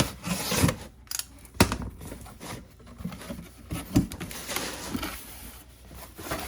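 Packaging being opened and handled: rustling and tearing with a few sharp knocks.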